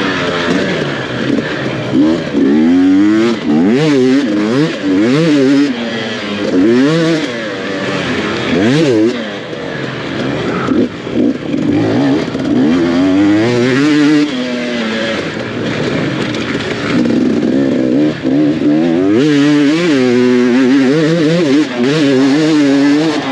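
Dirt bike engine revving up and down in quick surges, its pitch rising and falling about every second as the throttle opens and closes and the gears change on an enduro trail.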